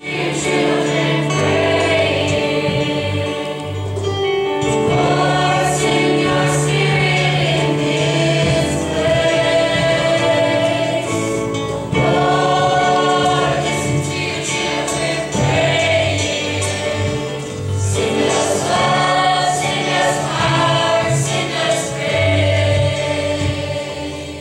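A school choir singing a gospel song over sustained low accompaniment notes.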